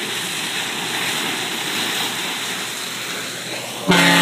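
Steady rush of water along a ship's hull from the bow wave at about 11 knots. Near the end, the R/V Knorr's foghorn starts suddenly: a loud, steady, low horn blast.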